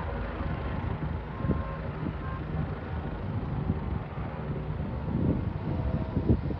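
Steady distant engine drone with wind gusting on the microphone; the gusts are strongest about five and six seconds in.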